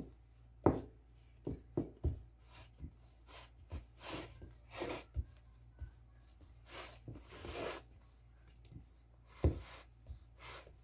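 A glass bottle used as a rolling pin, rolling dough flat on a ceramic tray: irregular knocks and clinks of the glass against the tray, the sharpest just under a second in and again near the end, with soft rubbing sweeps of the bottle over the dough in between.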